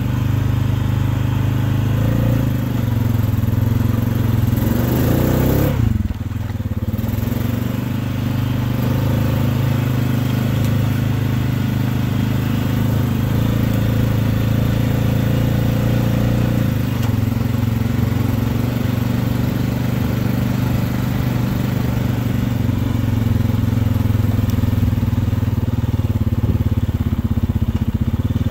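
Four-wheeler (ATV) engine running steadily as it rides along a snowy trail, with a brief drop in revs about six seconds in.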